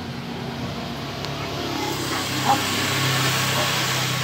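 Engine of a motor vehicle passing on the street: a steady low hum with road hiss that grows louder through the second half, then starts to fade.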